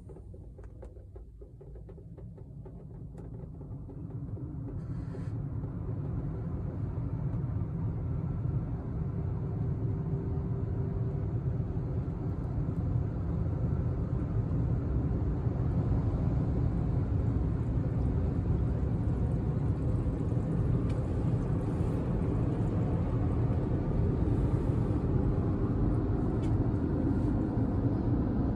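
Gantry car wash drying blowers running over the car, heard from inside the closed cabin as a deep, steady rush of air that builds over the first five seconds or so and then holds.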